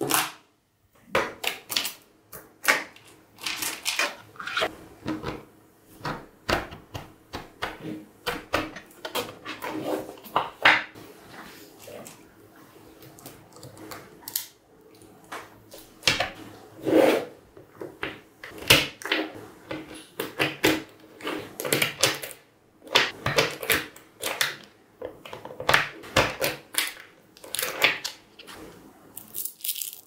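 Small metal magnetic balls clicking and snapping together as they are pulled apart and rearranged by hand, in irregular runs of sharp clicks and short rattles.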